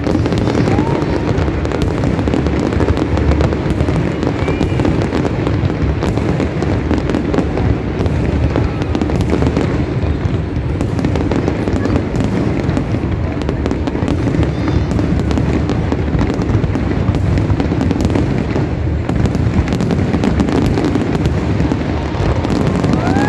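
Large aerial fireworks display: a loud, continuous barrage of shell bursts, with rapid overlapping bangs and crackling and no break.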